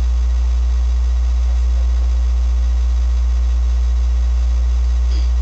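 A loud, steady low hum, unchanging throughout, that swamps the recording: a recording fault, the cause of its bad sound quality.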